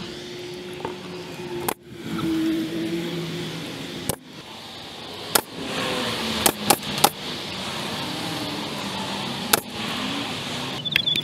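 Pneumatic nail gun firing a series of sharp shots as trim is nailed up overhead, with three shots in quick succession a little past halfway. A steady low background hum runs underneath.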